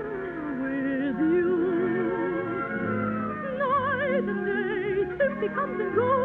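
Operetta singer holding long notes with a wide vibrato over orchestral accompaniment, the pitch gliding down about half a second in and rising again later, in the narrow, muffled sound of an old radio broadcast recording.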